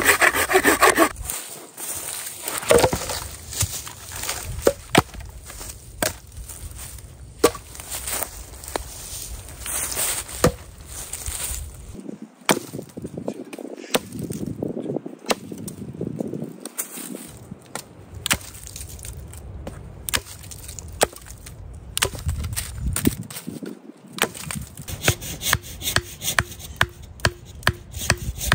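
A hand saw rasps through a log for about the first second, then a Fiskars X13 axe chops and splits a rotten log in a series of irregular sharp knocks and cracks.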